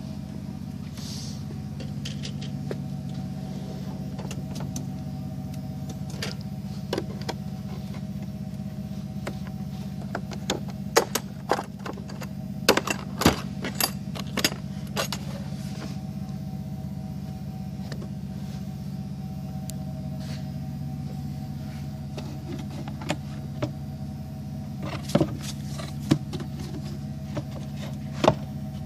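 Scattered sharp clicks and clacks of metal tools, plastic socket cases and drawer hardware being handled in a steel toolbox, in clusters, over a steady low hum.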